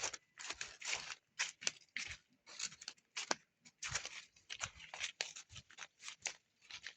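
A pig crunching and chewing its snack, with irregular crackly rustling bursts a few times a second.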